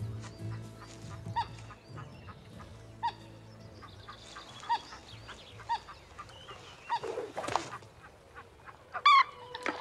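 Waterfowl calling on a river: short honking calls, one every second or two, with a louder call near the end. A brief rustle comes a little past the middle.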